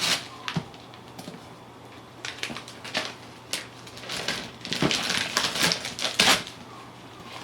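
Wrapping paper being torn and crumpled by hand in short, irregular rips, as the paper on a gift is shredded into small pieces; the rips come thickest past the middle.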